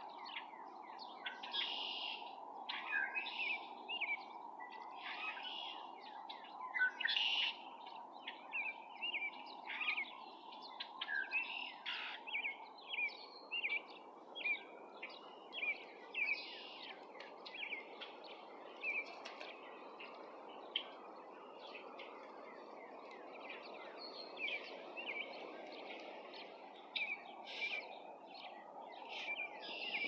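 Small birds chirping in many quick, short notes, thick at first and thinning out over the second half, over a steady background hiss of outdoor noise.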